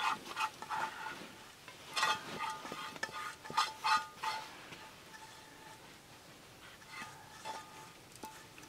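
Stone pounding and grinding food in a thin steel plate: irregular knocks and scrapes, each knock setting the plate ringing briefly. Busy for the first four seconds or so, then only a few scattered knocks.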